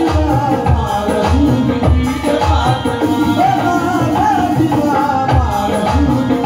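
Live qawwali: male voices singing in chorus over harmonium, with hand drums (tabla and dholak) keeping a steady beat.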